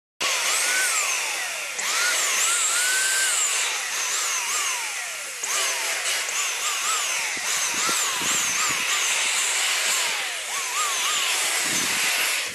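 Handheld electric paint sprayer running, a steady loud hiss of spraying paint that dips briefly twice as the trigger is eased. Repeated whistling tones that rise quickly and fall slowly sound over it.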